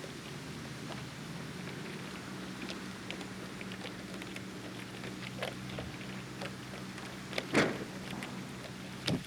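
A steady low machine hum with scattered small clicks, and a loud crackling knock about seven and a half seconds in, with a second just before the end.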